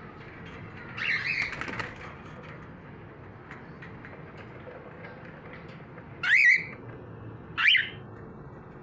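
Cockatiels in an aviary: about a second in, a brief burst of chattering with wing flutter, then two loud, rising contact calls, the first at about six seconds and the second shortly after.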